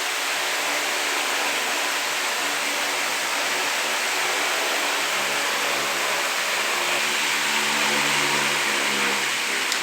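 Tron AT 60 wall fan running, a steady rush of moving air over a low motor hum, with a click at the very end.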